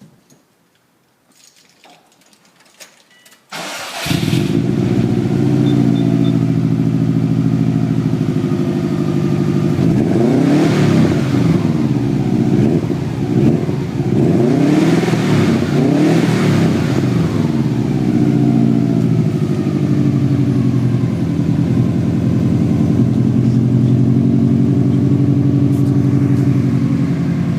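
Subaru WRX's turbocharged flat-four with an aftermarket downpipe starting up about three and a half seconds in and settling to a loud, steady idle through the exhaust. It is blipped several times, rising and falling in pitch, in two groups in the middle, then idles again.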